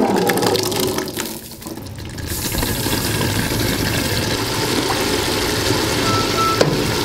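Thick chickpea curry poured and scraped from an aluminium pot with a wooden spoon into a large hot, steaming pot, followed about two seconds in by a steady watery hiss from the pot.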